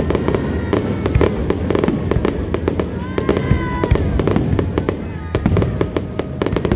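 Fireworks display going off in quick succession: many sharp bangs and crackles.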